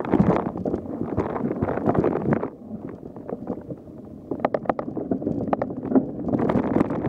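Mountain bike rattling and knocking over a bumpy trail, with wind on the microphone. The rattle eases about two and a half seconds in, a quick run of sharp clicks follows, and the knocking picks up again near the end.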